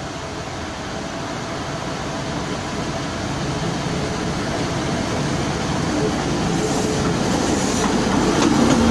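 Diesel locomotive hauling passenger carriages coming along the track, its engine and wheels growing steadily louder as it draws up and starts to pass close by.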